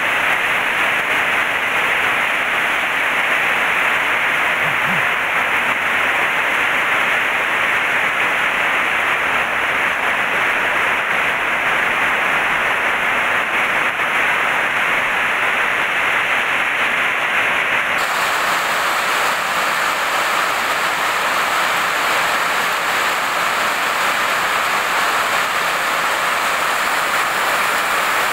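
Heavy tropical rain pouring down steadily on corrugated metal roofs, a loud, noisy, continuous hiss. About two-thirds of the way through it turns abruptly brighter and hissier and stays that way.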